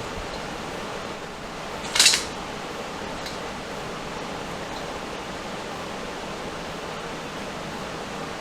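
Steady hiss of background noise, with one brief, sharp clink of metal hardware about two seconds in and a couple of faint ticks after it, as the opener rail's turnbuckle is handled.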